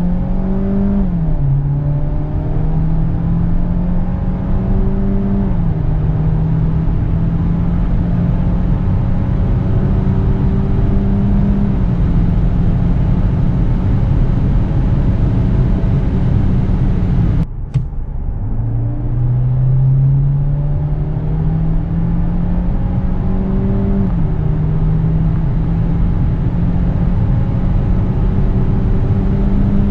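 Peugeot 508 Hybrid's 1.6-litre turbocharged four-cylinder petrol engine at full throttle under kickdown, heard from inside the cabin. Its note climbs slowly and drops at each upshift of the eight-speed automatic, three times in the first run. It breaks off suddenly about two-thirds through, and a second full-throttle run begins, climbing again with one more upshift.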